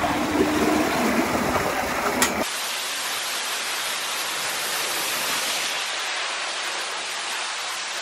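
Water rushing down a tall water-park speed slide. Wind rumbles on the microphone at the top of the tower, then about two and a half seconds in it changes abruptly to a steady hiss of water running down the slide.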